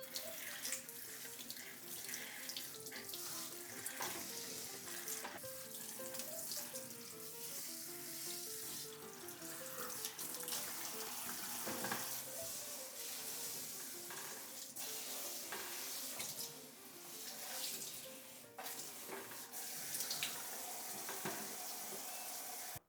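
Water running from a kitchen tap into a sink, steady, with a few sharp clicks, over soft background music with a simple melody.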